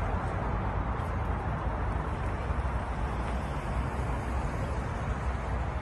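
Steady outdoor background noise: an even low rumble with a soft hiss over it and no distinct events.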